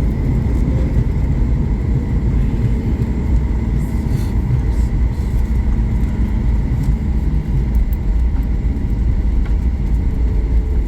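Cabin noise of a Boeing 737 MAX 8 rolling on the ground after landing: a steady low rumble with faint steady whining tones above it.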